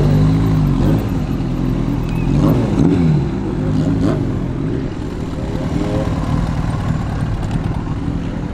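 Classic Japanese motorcycles, a Kawasaki and a Honda CBR, riding past one after another, their engines revving up and easing off several times as they pull away.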